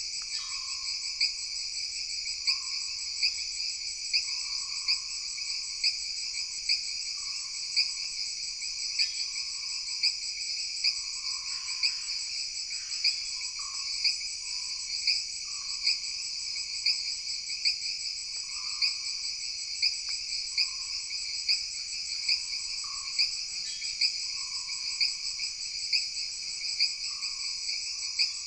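Dense, steady chorus of jungle insects, crickets among them, with a rapid pulsing trill. Short frog calls repeat over it about once a second.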